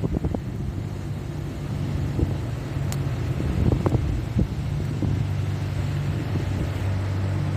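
Street traffic: a vehicle engine running with a steady low hum, with a few short thumps and a sharp click about three seconds in.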